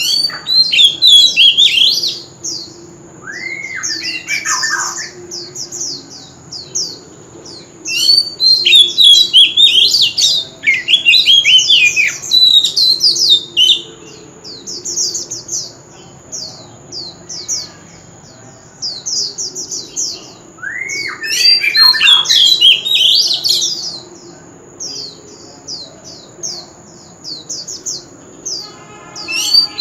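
Male oriental magpie-robin singing: three loud bursts of rich, varied whistles and harsh notes, with runs of short, quick high notes in between. A steady high-pitched whine runs under the song.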